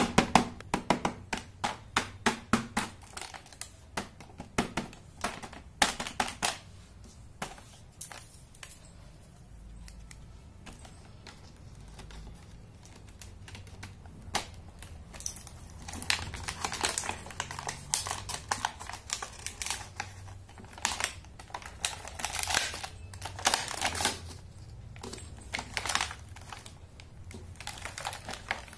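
Fingers tapping and pressing on the clear plastic blister of a carded toy set, a fast run of sharp clicks for the first several seconds that thins out toward the middle. From about halfway the plastic crinkles and crackles as it is handled and lifted from the card.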